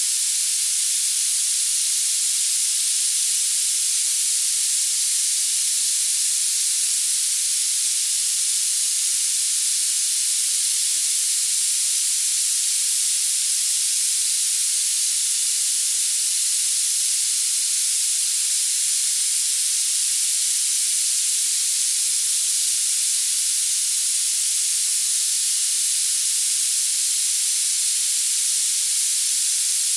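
Tinnitus masking noise: a steady, high-pitched hiss of filtered noise with no low end.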